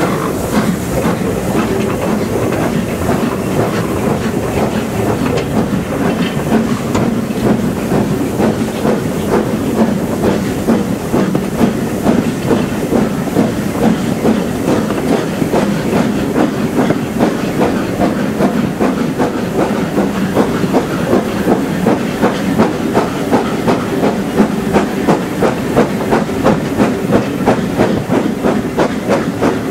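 LMS Black Five 4-6-0 steam locomotive working under steam, heard from a carriage it is hauling. Its exhaust beats come in a rapid, even rhythm over the hiss of steam and the clickety-clack of the carriage wheels on the rails. The beats grow sharper and louder through the second half.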